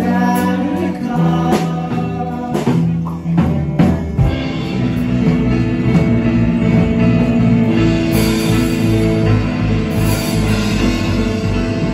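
Live rock band playing electric guitars and drum kit: sharp accented hits for the first few seconds, then the full band playing on steadily, with cymbals coming up near the end.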